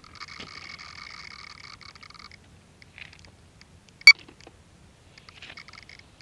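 Steady high-pitched whine from the landed Align T-Rex 600 Pro RC helicopter that cuts off suddenly a little over two seconds in, followed by a single sharp click about four seconds in.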